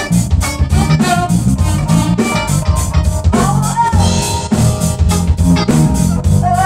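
A live band playing, with a drum kit keeping a steady beat under electric guitar, keyboard and saxophone.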